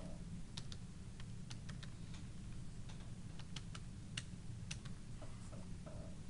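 Computer keyboard keys tapped in a quick, irregular run of clicks as a six-digit number is typed in, over a steady low hum.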